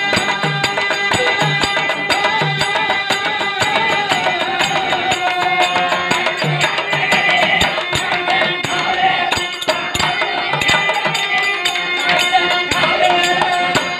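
Live folk music: low drum strokes about once a second, dropping out for a while and returning, under fast clicking percussion and a wavering melody over held steady tones.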